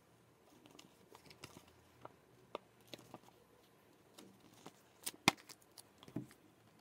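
Quiet room with scattered faint clicks and taps, and one sharper click about five seconds in.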